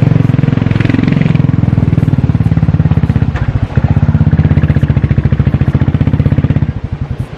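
Royal Enfield Bullet's single-cylinder engine running while the motorcycle is ridden, a steady rapid beat of firing pulses. It eases off briefly about three and a half seconds in and again near the end.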